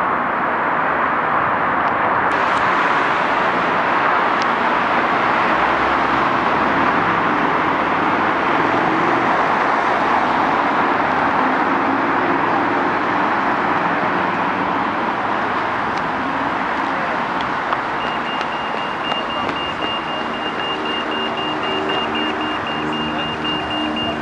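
Steady road-traffic noise from passing cars. From about three quarters of the way through, a high electronic beeping repeats rapidly, and a vehicle engine idles close by.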